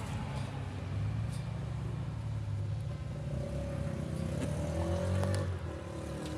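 A car engine running steadily, with a few light clicks over it.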